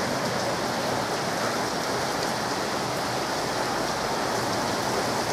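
Heavy rain pouring steadily, an even hiss with no letup.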